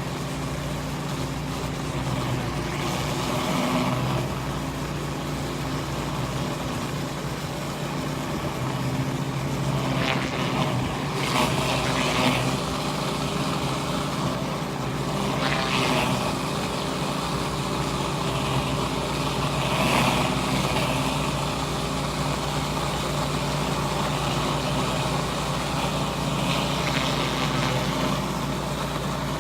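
Pressure washer running steadily under a RYOBI surface cleaner, a constant engine drone with a water-spray hiss that swells and fades several times.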